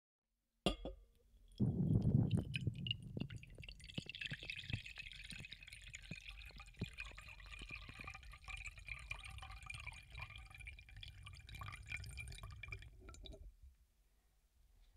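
Air bubbles blown through a tube into a bowl of water, heard underwater through a latex-covered microphone. A louder gush comes a couple of seconds in, then a steadier stream of small bubbling pops that stops near the end.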